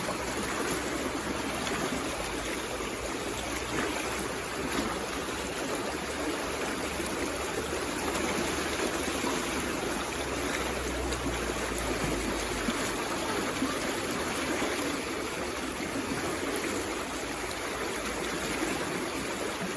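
A water stream flowing steadily: an even rushing and babbling of running water.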